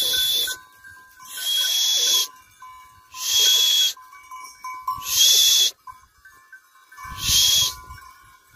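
A person breathing heavily right at the microphone, five hissing breaths about two seconds apart, with a faint steady ringing between them.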